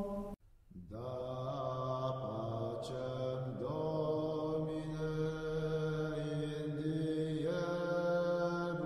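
Slow chant-like vocal music: long held notes over a steady low drone, stepping to a new pitch every second or two. It cuts out briefly just under a second in, then the next phrase starts.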